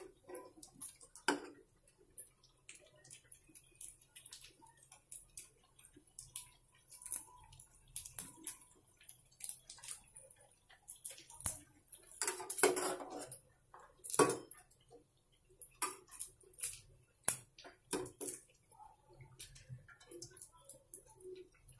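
Metal tongs and a slotted server clinking and scraping against an aluminium saucepan as syrup-soaked malpuas are lifted out of the sugar syrup. The clicks are scattered and irregular, with a louder run of clatter about halfway through.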